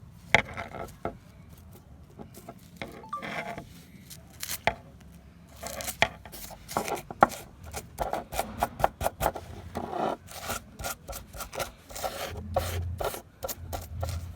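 Hand work on old pliers being restored: irregular rubbing and scraping strokes with sharp clicks, sparse at first and coming quickly from about halfway on.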